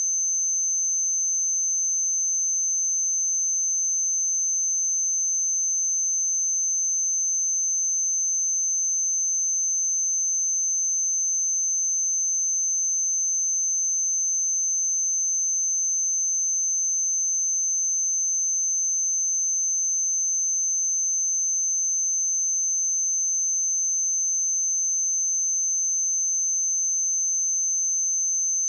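A pure 6214 Hz sine-wave test tone: one steady, high-pitched whistle-like tone held at constant pitch and level.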